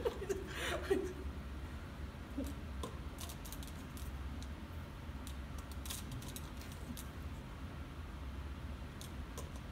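Faint, scattered light taps and clicks of a pinecone on a string knocking against a paper cup during kendama attempts, over a steady low hum.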